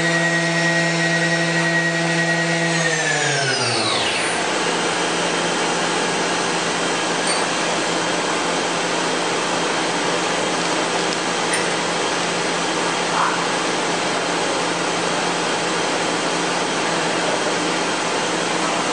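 A Mazak 510C vertical machining center's spindle whines at a steady pitch, then winds down smoothly to a stop about three seconds in. A steady machine hum continues after it.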